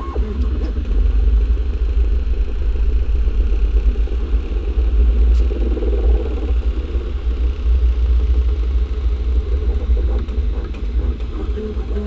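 Original Prusa i3 MK3S 3D printer printing: its X- and Y-axis stepper motors whir as they move the print head and bed, with a strong low rumble that fluctuates continually.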